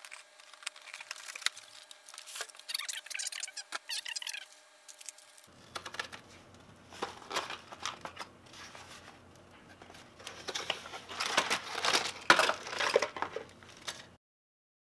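Cardboard toy box being opened and its plastic packaging handled: irregular crinkling, rustling and tearing, louder in bursts, and cutting off abruptly near the end.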